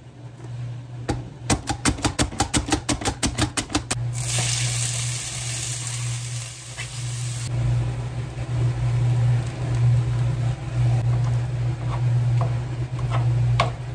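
A knife chopping quickly on a plastic cutting board, about six strokes a second. Then onion and green pepper start sizzling as they go into a hot frying pan, and the sizzle goes on, softer, as ground meat is added and stirred. A steady low hum runs underneath.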